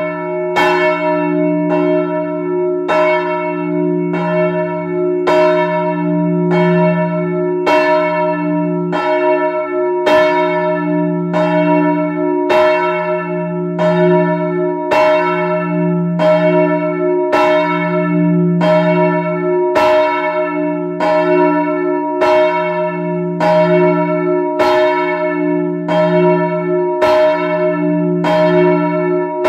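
A swinging church bell, the parish's third bell used as the noon bell, rings with its clapper striking about once a second. Each stroke rings on into the next, and a deep hum swells and fades with the swing. Heard up close inside the belfry.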